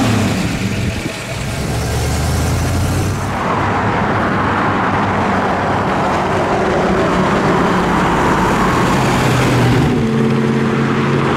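1970 Chevrolet Chevelle SS 454's LS5 454 big-block V8 idling steadily for the first few seconds, then the car driving along the street with road noise, its engine note coming through clearly again near the end as it pulls away.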